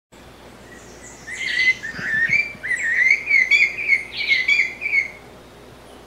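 Blue-bellied parrot (sabiá-cica) singing a fast, varied run of whistled notes that rise and fall, starting about a second in and lasting about four seconds.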